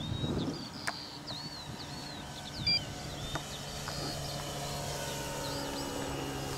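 Electric motor and 19x8 wooden propeller of a large model Stampe SV4b biplane giving a steady low drone in flight, coming in after the first second or so. Small birds chirp over it, mostly in the first half.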